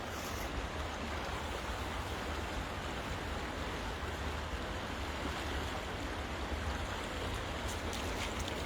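Steady rush of flowing river water, with wind rumbling on the microphone and a few faint ticks near the end.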